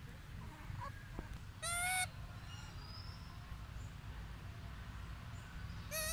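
Macaque giving two short, shrill, wavering squeals, about two seconds in and again near the end, over a steady low rumble.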